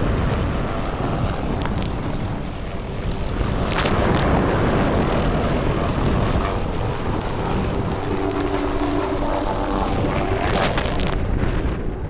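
Helicopter rotor and engine noise with wind, a steady loud rush over the breaking surf of big waves; a humming engine tone comes through about two-thirds of the way in.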